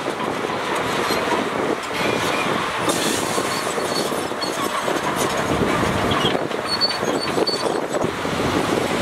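Shantui crawler bulldozer working, its steel tracks clanking and squealing with a dense run of clicks and short high squeaks over steady machine noise.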